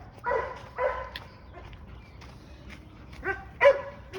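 A dog barking: two quick barks near the start and two more near the end.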